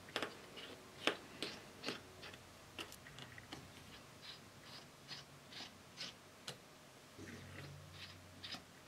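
Small Phillips screwdriver turning out the tiny screws of an iPhone 6S's metal connector shield: faint, irregular light clicks and ticks of metal on metal.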